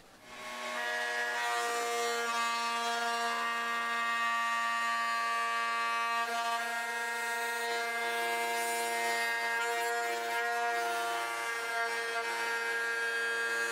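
Table-mounted router running with a steady whine, its flush trim bit cutting away excess wood from a cutting-board blank as the guide bearing follows the template. The sound swells in over the first second, then holds steady.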